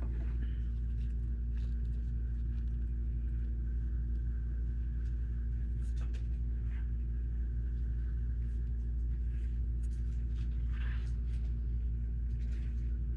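A steady low hum throughout, with faint scattered clicks of plastic Lego pieces being handled and pressed together.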